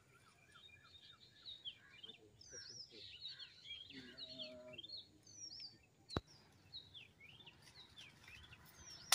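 Small birds chirping, many short quick falling calls overlapping, over faint outdoor background noise, with a single sharp click about six seconds in.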